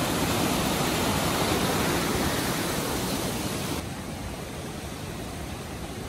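White water of the Kaituna River rushing over rapids, a steady noise. About four seconds in it drops a little in level and sounds duller.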